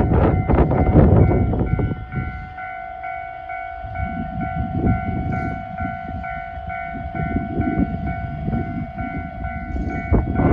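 Japanese railway level crossing warning bells ringing, a steady electronic tone with a faster pulsing chime over it. A train's wheels clatter over the rail joints with a heavy rumble for the first two seconds; the rumble then eases off and swells again near the end.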